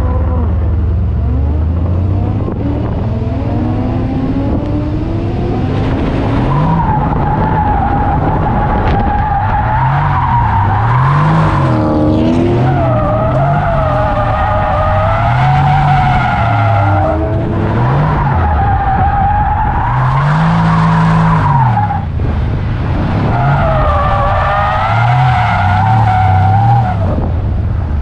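Car drifting through a figure-8: the tyres squeal in long, wavering tones while the engine revs rise and fall over and over. The squeal breaks off briefly every few seconds as the car changes direction, then picks up again.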